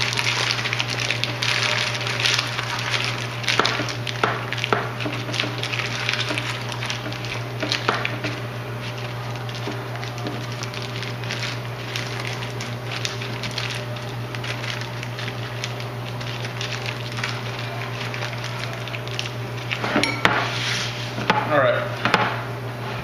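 Parchment paper crinkling and rustling as it is folded and crimped by hand around a meatloaf on a metal baking sheet, busiest in the first few seconds, with a few light knocks on the pan. A steady low hum runs underneath.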